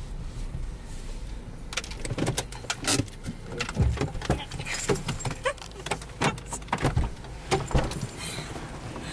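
A hurried clatter of handling noise: many quick clicks and knocks with a jangle of keys, thickest from about two seconds in until near the end.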